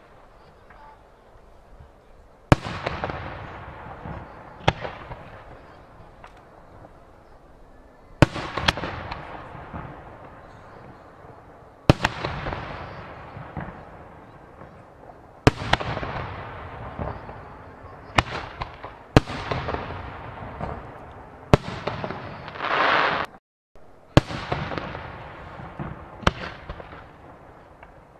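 Aerial firework shells bursting one after another, about a dozen sharp bangs each followed by a long fading tail of echo and crackle. About two-thirds of the way through, a louder hiss builds for a second before the sound briefly cuts out.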